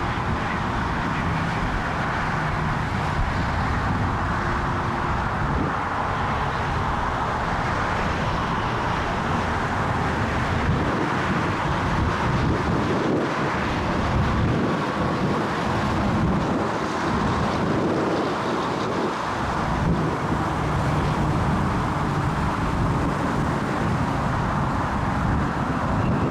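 Steady jet aircraft engine noise, mixed with wind buffeting the microphone.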